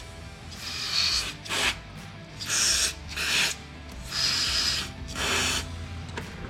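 Aerosol can of spray lubricant hissing in about six short spurts as it is sprayed onto a car's wheel nuts.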